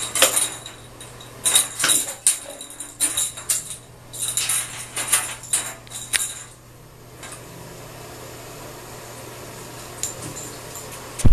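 A small toy skittering and clattering across a bathtub as a cat bats it around: quick clicks and rattles in several bunches for about the first six seconds, then they stop. A low steady hum runs underneath.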